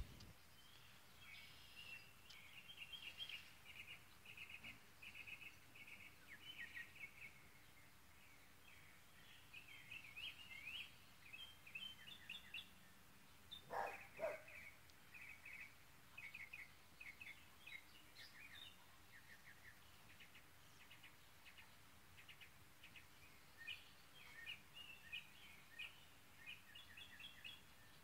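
Songbirds chirping and singing faintly, many short repeated chirps throughout. About fourteen seconds in there are two louder, lower calls in quick succession.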